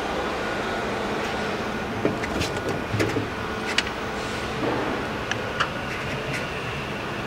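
Steady hum of machinery on a factory floor, with a forklift passing close at the start. A scatter of sharp clicks and clanks comes from about two seconds in.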